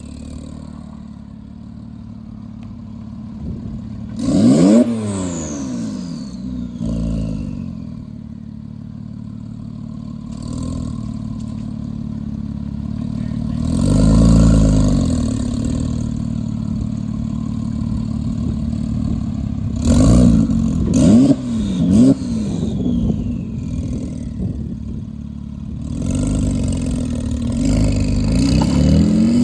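Porsche 997 Turbo's twin-turbo flat-six revving up and dropping back several times, with a few quick stabs of throttle about two-thirds of the way in and a last rev rising at the end. After the revs a high turbo whistle falls away, with turbo flutter as the throttle closes.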